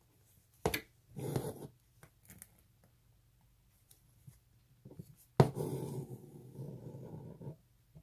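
Embroidery needle punching through fabric held taut in a hoop, and floss drawn through it with a rasping hiss: a sharp pop and short rasp about a second in, then another sharp pop about five seconds in followed by about two seconds of floss pulling through.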